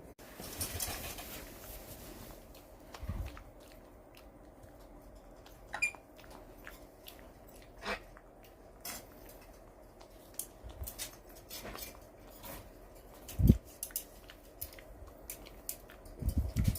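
Scattered small clicks and taps with a few dull thumps, the loudest a little past the middle, in a small room.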